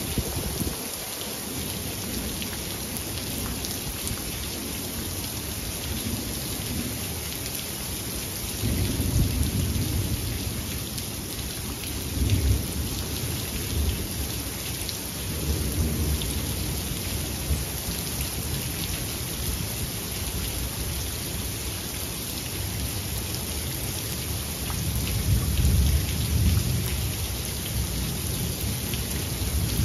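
Steady rain falling through a thunderstorm, with thunder rumbling in several long low rolls, the strongest about nine, twelve, sixteen and twenty-six seconds in.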